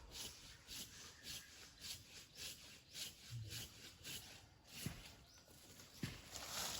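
Quick, even scraping or rubbing strokes, about three a second, that stop after four or five seconds, followed by two soft knocks.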